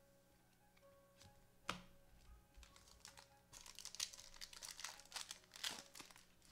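Foil trading-card pack wrapper crinkling and crackling as it is torn open, in a dense run of quick crackles from about three and a half seconds in. A single sharp click comes a little before that.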